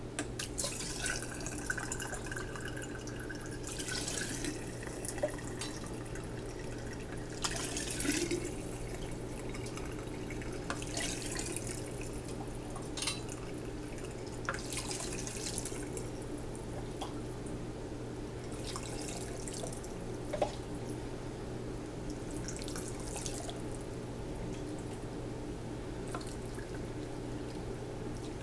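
Chicken broth poured in a series of short pours through a mesh strainer and funnel into a glass mason jar, splashing and trickling as the jar fills, with now and then a light clink.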